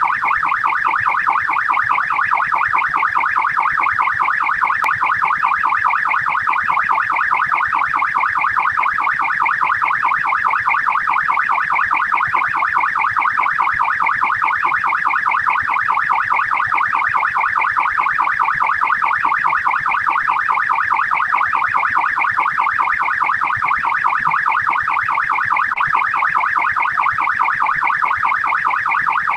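Australian police siren in fast yelp mode: a rapid, continuous up-and-down wail repeating several times a second.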